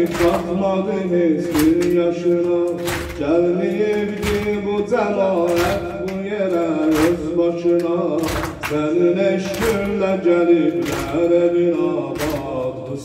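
A male reciter chants a mourning lament (noha) while the congregation beats their chests in unison, a sharp slap landing roughly once a second.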